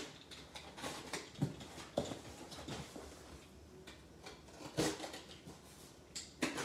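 Box cutter slicing the packing tape on a cardboard box: a series of short, irregular scratchy scrapes with light taps against the cardboard, and a sharper knock about five seconds in.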